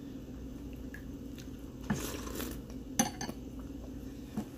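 Metal spoon clinking against a ceramic cereal bowl: a few light clinks about two and three seconds in.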